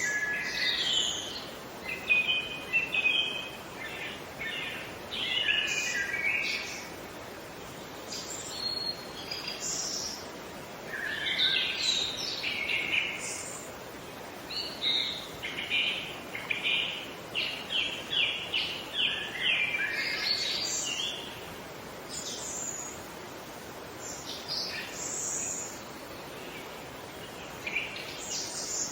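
Songbirds singing and chirping in short bursts of phrases, including a quick run of repeated notes about midway, over a steady background hiss.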